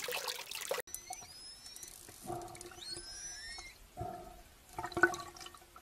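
Underwater sound of a killer whale calling: thin high whistles gliding up and down for a couple of seconds, then several short, lower calls.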